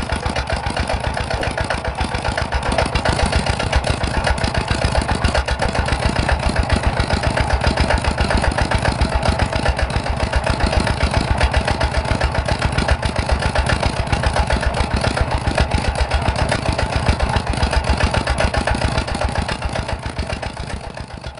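Miniature rice-milling machine running, a steady fast rattling hum of its motor and mill, fading out near the end.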